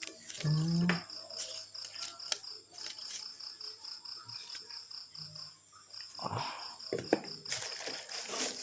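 A cricket chirping in a fast, even pulse of about five chirps a second, pausing briefly after the middle. Scattered clicks and rustles of packaging being handled sound over it, with a short low murmur about half a second in.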